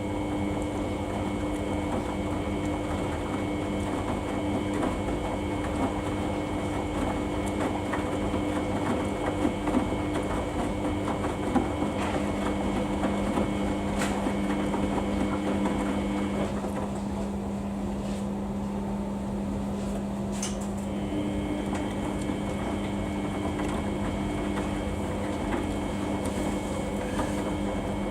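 Samsung washing machine running a Daily 40 wash cycle: a steady churning noise from the drum, with the motor's humming tones dropping out and returning a few times as the drum changes its motion.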